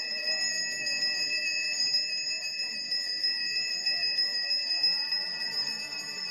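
Balinese priest's hand bell (genta) rung without pause, a steady high ringing of a few fixed tones with a fast shimmer, over faint voices of the gathered worshippers.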